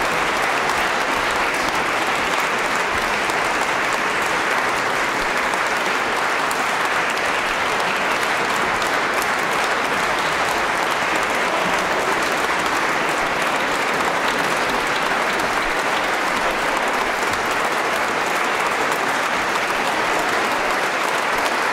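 A concert audience applauding steadily and without a break, the ovation at the end of a performance while the ensemble takes its bows.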